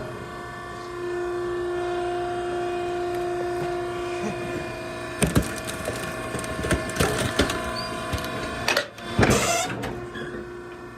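Maren hydraulic cardboard baler crushing cardboard boxes: a steady hum for a few seconds, then a run of cracking and crunching as the boxes give way, loudest about nine seconds in.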